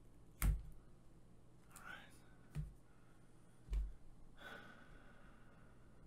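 Three sharp knocks, the loudest about half a second in, as the opened Nvidia Shield TV Pro console and its parts are handled on a wooden desk. Two short sigh-like breaths come between the knocks.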